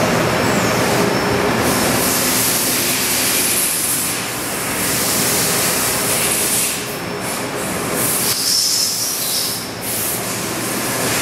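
Loud, steady machinery noise with a few faint steady tones, and a brief high whine about eight and a half seconds in.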